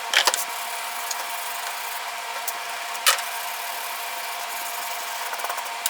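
Small hand wire brush scrubbing the bark-covered live edge of a wood slab, a steady scratchy rasping with a few sharper strokes, stripping loose bark and dirt off before finishing.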